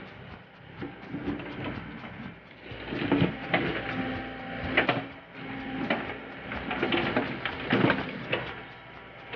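Backhoe working: irregular clanks and knocks over a running machine hum, with a brief steady whine in the middle.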